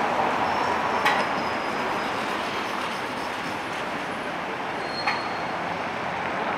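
Tram running away along street track, its rumble slowly fading, with two sharp clacks from the wheels and rails about a second in and about five seconds in, each with a brief high ring.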